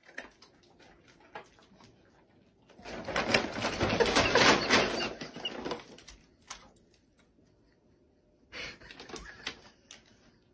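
Paper shopping bag rustling and crinkling as an animal moves inside it, loudest for about three seconds near the middle, with a shorter rustle near the end.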